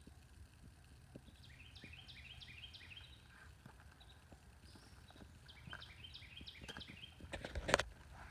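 A small bird singing two runs of short, quickly repeated notes that each drop in pitch, over faint outdoor background noise and scattered light clicks, with one sharp knock near the end.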